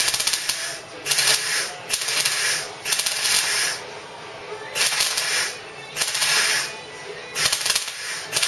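MIG welder laying short pulsed bursts of weld, each a crackling hiss of about half a second to a second, about one a second. The pauses let the pool cool while blobs of weld are built up either side of a wide gap in the car's body steel to bridge it.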